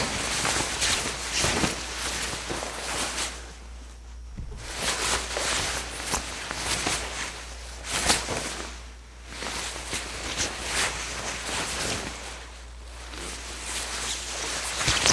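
Wet sheets being handled and hung up to dry: cloth rustling, with many short sharp snaps. It comes in bursts, with brief lulls about four, nine and twelve seconds in.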